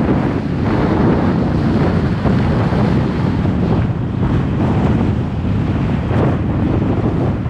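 Loud wind noise rumbling and buffeting on the microphone of a camera riding on a moving electric scooter, swelling and easing in uneven gusts.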